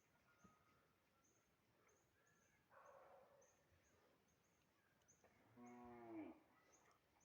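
Faint outdoor ambience with one drawn-out animal call, under a second long, falling slightly in pitch near the end. Short high chirps repeat throughout, and there is a brief rustle around the middle.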